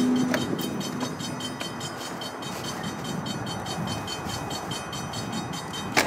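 Double-stack intermodal well cars rolling past, their steel wheels rumbling and clicking steadily over the rails. There is one sharp bang near the end.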